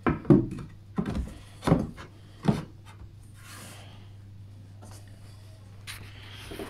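Length of grooved pine rail being knocked and shuffled into place against a newel post: four hollow wooden knocks in the first three seconds, then quiet with a faint steady hum.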